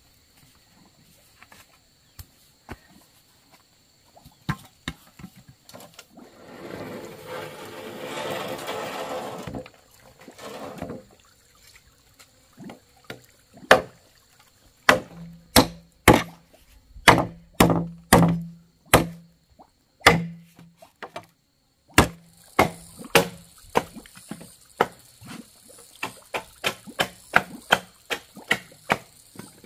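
Machete chopping a green bamboo pole on concrete: sharp strikes about once or twice a second, each with a brief low ring, turning to quicker, lighter taps near the end. Earlier, a few seconds of scraping as soil is scooped by hand.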